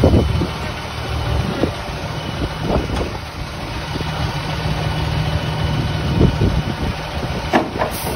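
An engine idling steadily, with a few short knocks over it.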